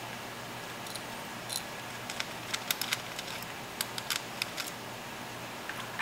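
Scattered small, sharp metal clicks and ticks of a precision screwdriver unscrewing a tiny screw beside a laptop hard drive, over a faint steady low hum.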